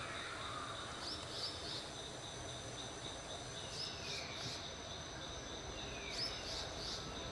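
Steady outdoor insect trilling, high and unbroken, with a few groups of short, quick bird chirps about every two and a half seconds, some preceded by a falling whistle.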